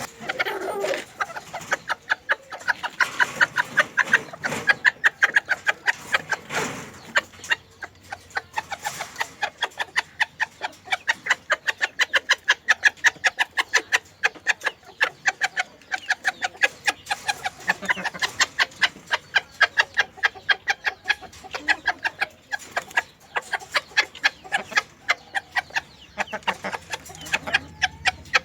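Bantam chickens clucking: a fast, continuous run of short, sharp sounds, several a second.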